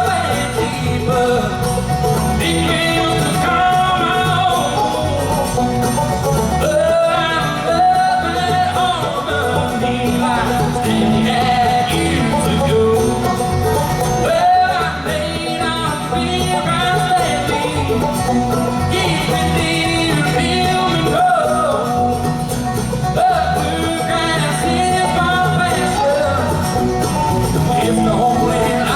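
A bluegrass band playing, with banjo and guitar and singing.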